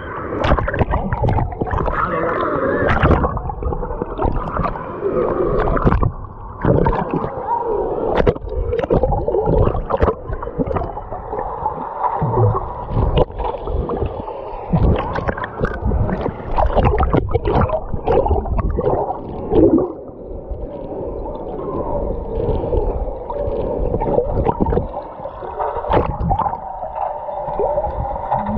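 Pool water sloshing and gurgling around a waterproof camera, muffled while it is under the surface, with many short knocks and splashes.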